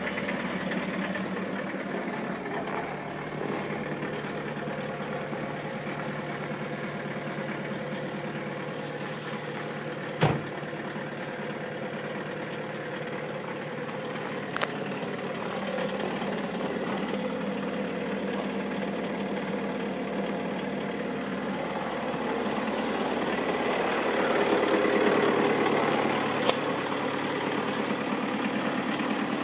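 A Volkswagen 1.9-litre BRM four-cylinder turbodiesel idling steadily just after a −20 °C cold start. It gets louder for a few seconds near the end. A single sharp thump comes about ten seconds in.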